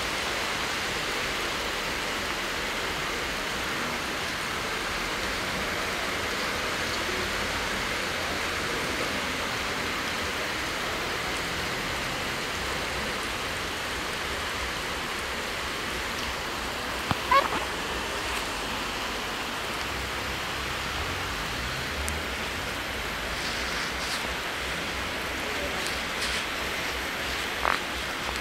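Steady hiss of heavy rain pouring down onto a flooded street, mixed with rushing floodwater. A brief, sharper sound stands out a little past halfway through.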